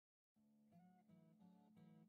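Background music: after a moment of total silence, a quiet guitar track begins about a third of a second in, with steady strummed chords.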